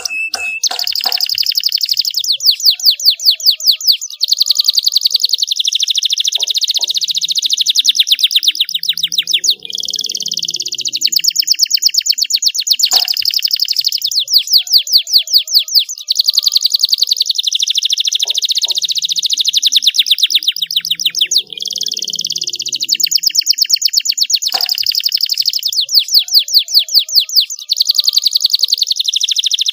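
Domestic canary singing continuously: long, fast trills of rapidly repeated high notes, running one into the next with a few brief pauses.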